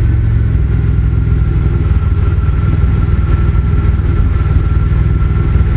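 Exhaust of a 2003 Chevrolet Impala LS's 3.8-litre 3800 Series II V6, idling steadily through a high-flow cat, resonator and dual Flowmaster mufflers. It has a deep, even pulsing note with a faint steady whine above it.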